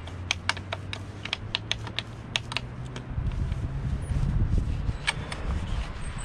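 Chrome pop-up boat cleat being buffed with a microfiber towel: a quick run of light clicks as the metal cleat is worked, then louder low rubbing of the cloth from about halfway through.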